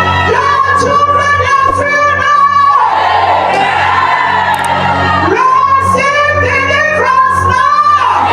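Singing over music: a voice sings two long phrases over steady held low notes from an instrument.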